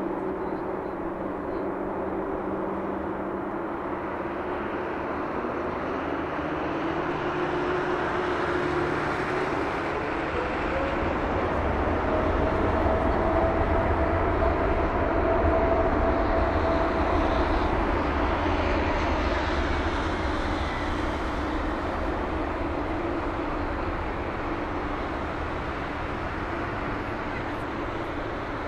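Boeing 787-8 airliner's turbofan engines spooling up for take-off: a whine climbs in pitch a few seconds in and then holds, under a deep rumble that grows louder toward the middle and eases as the jet rolls away down the runway.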